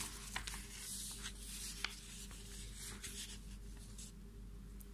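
Faint handling noise: paper and cloth rustling and rubbing as a handwritten sheet is shifted into place, with a few light clicks. A faint steady hum runs underneath.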